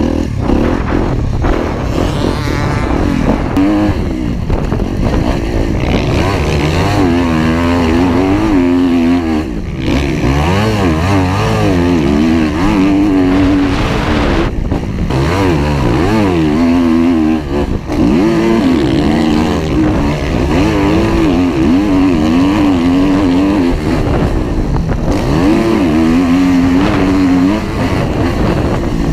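Motocross dirt bike engine running hard under the rider, its pitch rising and falling over and over as the throttle is opened and closed around the track.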